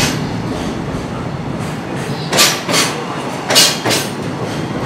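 Container wagons of a JR Freight train rolling past with a steady rumble. In the middle come two double clacks, about a second apart, as the wheelsets of coupled wagons cross a rail joint.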